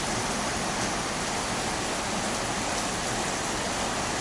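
Heavy rain pouring down: a steady, dense, even hiss of a downpour.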